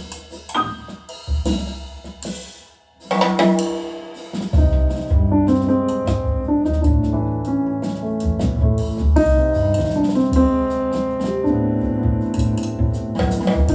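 A recorded jazz piano trio of piano, bass and drums played back over hi-fi loudspeakers driven by a SoulNote A-2 integrated amplifier. After a brief lull about three seconds in, a piano chord rings out, and the full trio comes back in a second or so later.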